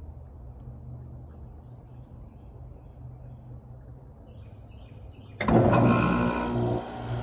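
A Goodman 3-ton packaged heat pump starting up in cooling mode. Birds chirp faintly at first, then about five seconds in the unit kicks on abruptly with a loud hum and a steady rush of noise that keep running.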